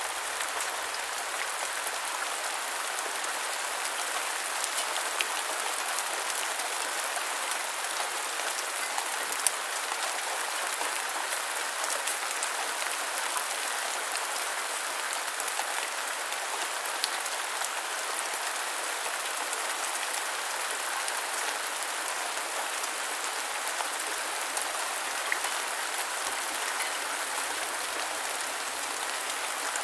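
Steady light rain falling on a hard surface, an even hiss with scattered individual drops ticking.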